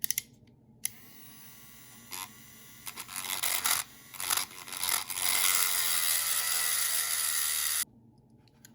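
A Dremel rotary tool starts about a second in and runs, grinding in uneven bursts and then steadily and loudly against the rivet of a diecast toy body, before cutting off abruptly near the end. A few small handling clicks come just before it starts.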